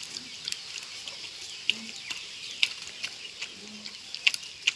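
Dog chewing and smacking on a ripe papaya, with irregular sharp wet clicks several times a second. Two short low calls sound in the background.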